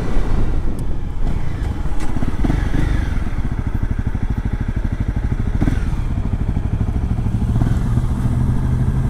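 Single-cylinder engine of a Honda CRF Rally dual-sport motorcycle running steadily under the rider, with a few short knocks.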